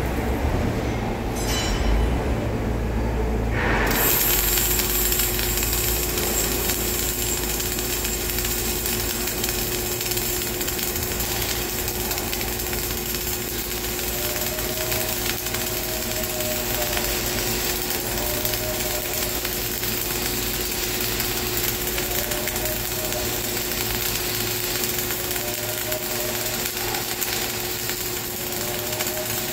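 Flux-cored arc welding on a vertical butt joint: about four seconds in, after a low rumble, the arc strikes and runs with a steady crackling hiss. In the second half a faint whine rises and falls every second or two.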